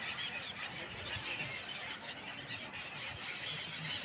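A large flock of gulls calling over the river: many short, high cries overlapping without a break.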